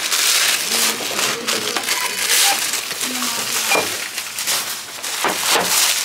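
Thin plastic carrier bag rustling and crinkling in irregular bursts as groceries are packed into it at a checkout.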